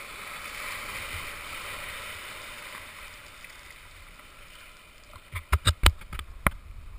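Whitewater rushing and hissing around a sea kayak's bow as it rides a breaking wave, fading after about three seconds. Near the end, a quick run of sharp knocks, the loudest sounds here.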